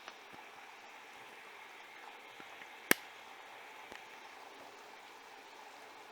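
Siemens iQ700 front-loading washing machine on a delicate cycle with a duvet: steady water noise from the drum, with one sharp click about three seconds in.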